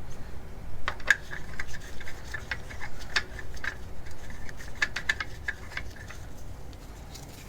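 Wheel lug bolts being started by hand into the hub: an irregular run of small metallic clicks and clinks with a brief ring.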